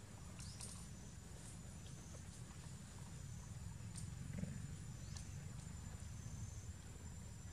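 Outdoor ambience: a low steady rumble with a thin steady high tone over it and a few short high chirps.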